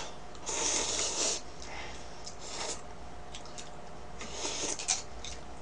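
Instant ramen noodles being slurped and chewed, in several noisy slurps. The longest comes about half a second in, with shorter ones in the middle and near the end.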